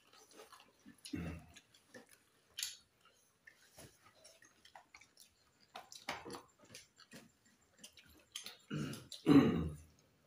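People eating rice and curry with their hands: scattered small chewing and mouth clicks, with a few short throaty voice sounds, the loudest near the end.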